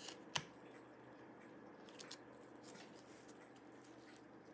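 Faint handling of a laptop SO-DIMM memory module: one sharp click shortly after the start as the slot's side latches release the stick, then a few faint ticks as it is slid out and handled.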